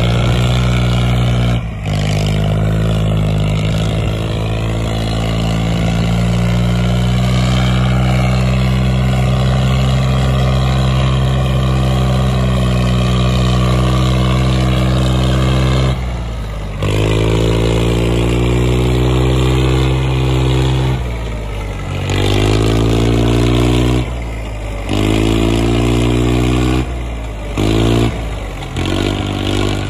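Swaraj 855 tractor's three-cylinder diesel engine working under load, pulling a fully loaded trolley. A steady low drone for the first half, then from about halfway the engine revs up in pitch again and again, broken by several abrupt breaks near the end.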